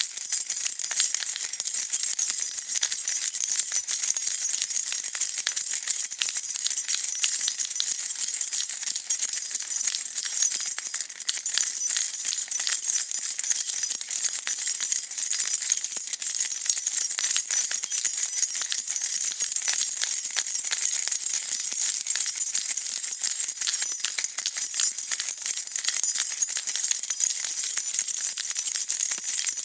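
A bunch of metal keys being shaken, jingling and rattling continuously in a dense, steady stream of bright clinks.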